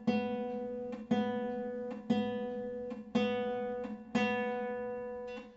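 Classical guitar's B string plucked with the middle finger in free stroke (tirando), five times at about one a second. The same note rings and fades after each pluck.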